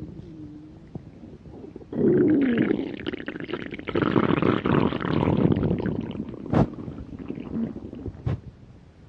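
Stomach growling: faint gurgles, then a loud rumble that starts suddenly about two seconds in with a short squeaky gurgle and rolls on for several seconds before fading. Two sharp clicks come near the end.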